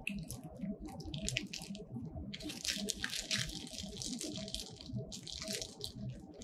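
Thin clear plastic bag crinkling and rustling as it is handled, in irregular crackly spells that are busiest a couple of seconds in and again near the end.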